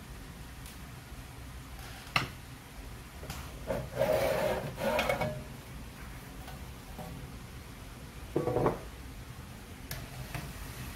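Sheet-metal cover of a Kunkin KP184 electronic load being slid off its chassis: a sharp click about two seconds in, then a loud scraping rub of metal on metal for over a second, and a shorter scrape later as the cover comes free.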